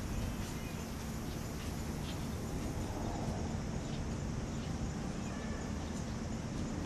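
Steady low outdoor rumble, with a few faint short high chirps or ticks scattered through.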